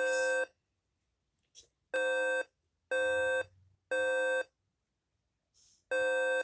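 Simplex 2902-9732 fire-alarm speaker sounding the temporal-three evacuation tone: loud, buzzy half-second tones, three in a row about a second apart, then a pause of about a second and a half. One tone ends a set at the start, a full set of three follows, and the next set begins near the end.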